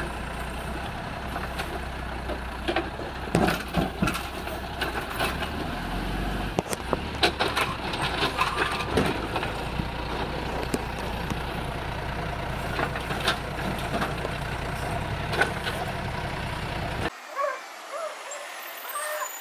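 Automated side-loader garbage truck working at the curb: its diesel engine runs steadily while the hydraulic arm grabs and tips wheeled carts, with repeated knocks and bangs as carts and trash hit the hopper. About three seconds before the end the truck sound stops abruptly, leaving quieter outdoor ambience.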